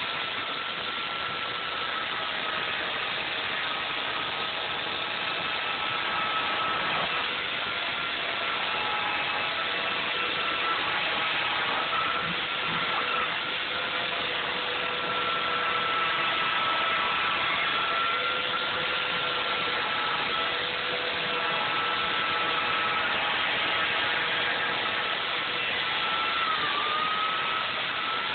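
Electric chainsaw running steadily as it cuts into a large foam block: a continuous motor whine over the rush of the chain, dipping briefly in pitch a few times as the blade bites.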